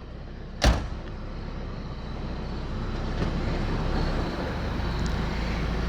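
A sharp knock about a second in, then a car running, its low engine and road noise growing steadily louder.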